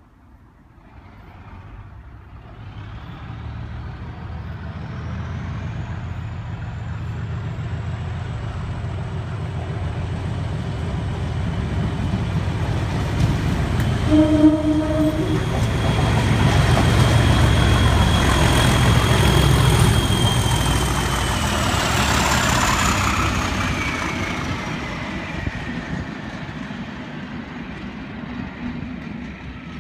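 A Class 37 diesel locomotive approaches under power, its English Electric V12 engine working hard with the turbocharger whistling. It passes loudest about two-thirds of the way through, then fades away with the whistle dropping in pitch. A short horn note sounds about halfway.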